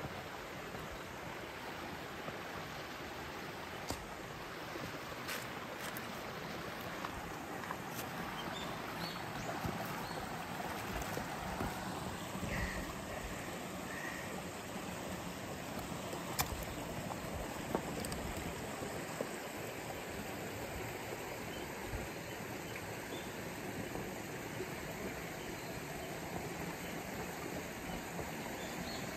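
Shallow rocky creek flowing, a steady hiss of water over stones, with a few sharp clicks here and there.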